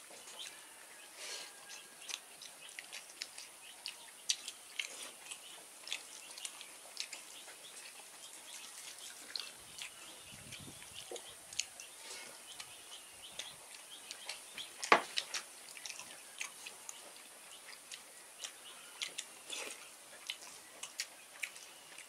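Eating by hand from banana leaves: chewing, lip smacks and fingers working rice, heard as a run of small irregular clicks, with one sharper click about fifteen seconds in.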